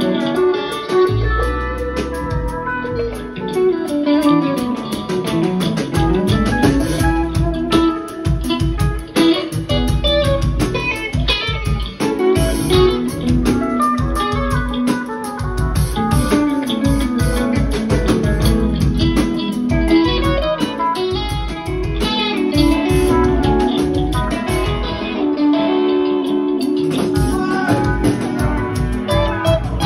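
Live rock band playing an instrumental jam: electric guitars trading lines over bass and drums, with sliding, bending notes.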